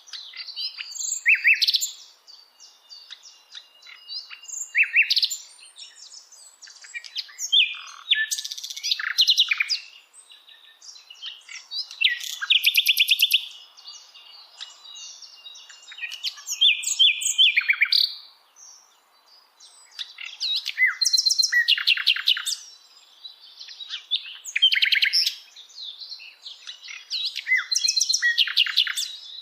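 Songbirds singing: phrases of rapid high trills and chirps, a new phrase every three or four seconds.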